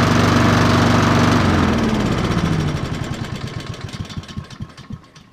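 Honda 216 lawn mower's GCV160 single-cylinder engine running steadily, then about one and a half seconds in it winds down, its pitch falling and its firing slowing to separate beats until it stops near the end.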